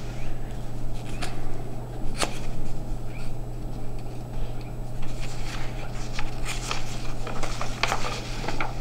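Paper cards rustling and tapping in scattered short clicks as they are handled, over a steady low electrical hum.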